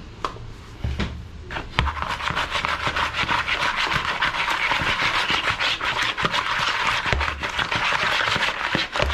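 Seasoned raw fish steaks sliding and tumbling against the sides of a plastic bowl as it is shaken to coat them: a rapid, continuous rubbing scrape. A few knocks come in the first two seconds, before the shaking starts.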